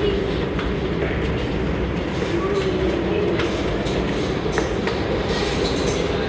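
New York City subway train running on the tracks below, a steady rumble and clatter of wheels on rail.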